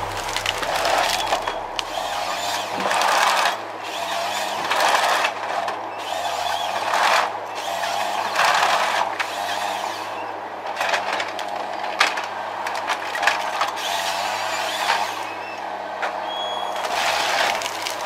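Forestry harvester at work: its engine runs steadily while the harvester head feeds and delimbs a tree trunk, with repeated surges of rasping and branches cracking and snapping.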